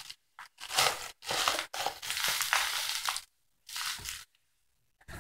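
Plastic bubble wrap packaging crumpled and handled, crinkling in about five bursts with short gaps, the longest lasting about a second and a half.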